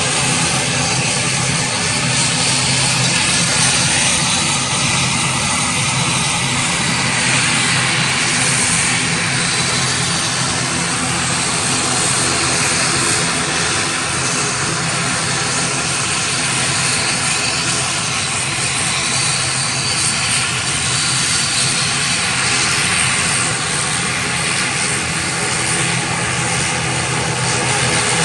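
ATR 72-600 turboprop's Pratt & Whitney PW127M engines running as the aircraft taxis, a steady propeller drone over a continuous hiss.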